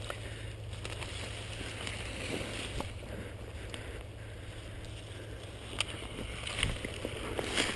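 Footsteps pushing through dense scrub, leaves and brush rustling steadily, with a few sharp twig snaps in the last couple of seconds.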